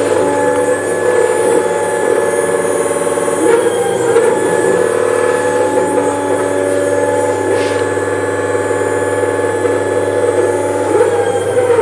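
Xiaomi M365 Pro 2 electric scooter's hub motor whining steadily as the wheel spins at top speed, about 58 km/h, on the added 4S speed battery. Its pitch shifts briefly about three and a half seconds in and again near the end.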